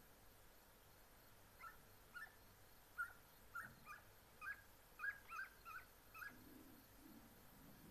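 Segugio italiano hounds giving tongue while working a scent: a run of short, high, upward-sweeping yelps, about two a second, starting near two seconds in and stopping a little after six.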